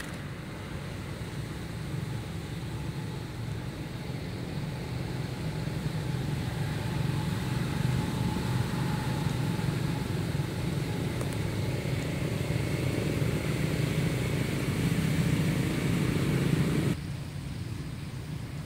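Low rumble of a motor vehicle running nearby, growing gradually louder with a faint drifting engine note, then cutting off abruptly near the end.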